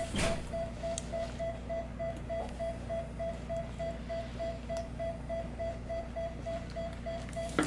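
Anesthesia monitor beeping at a quick, steady pace, about three short mid-pitched beeps a second, over a low steady hum: a pulse or heart-rate tone tracking the anesthetized cat's heartbeat.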